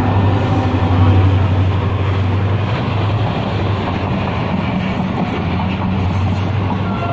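Pakistan Railways diesel locomotive passing close by with a loud low engine drone that fades after the first few seconds. This gives way to the steady noise of passenger coaches rolling past, wheels running on the rails.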